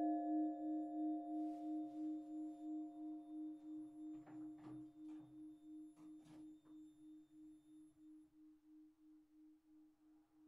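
The hum of two church bells (KID Jesenice 1923 and Strojne Tovarne in Livarne Ljubljana 1928) dying away after the peal has stopped: one low tone that wavers in and out about two to three times a second as it fades, its higher overtones gone within the first seconds. A few faint knocks come about halfway through.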